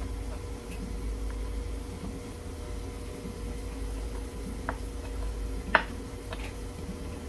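A few sharp knife taps on a cutting board while bell peppers and onions are chopped by hand, the loudest a little under six seconds in, over a steady low hum.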